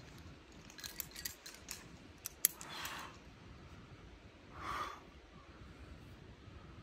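Small metallic clicks of climbing gear on the harness as the climber moves, then two short, forceful exhalations from the climber straining on the wall, about three and five seconds in.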